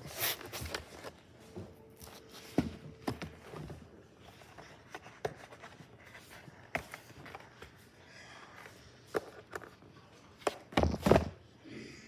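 Keyboard box and packaging being handled and opened: scattered taps, knocks and rustles, with a louder cluster of knocks about eleven seconds in.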